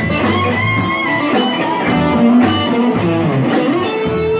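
Live band playing an instrumental stretch of a dance song: electric guitar over a steady pulsing bass and beat.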